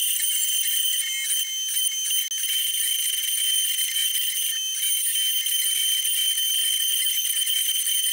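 The 800 W spindle of a modified 3018 Pro CNC router, running with a steady high-pitched whine while its engraving bit cuts a design into an oak panel.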